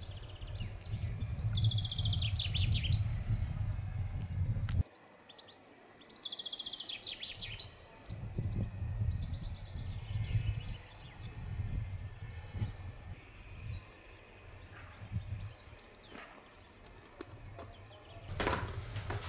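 Songbirds singing in short bursts of rapid, falling trills over a steady high-pitched buzz, with a low wind rumble on the microphone that drops out abruptly about five seconds in and later returns. A short, sharp clatter sounds near the end.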